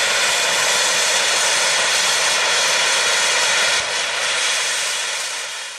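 Steam locomotive blowing off steam: a loud, steady hiss with no chuffing rhythm, dipping briefly past the middle and fading near the end.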